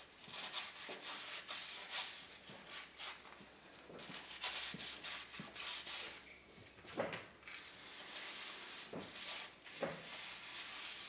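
A cloth rag rubbed in quick, uneven strokes over the face of a new brake rotor, wiping it clean with solvent.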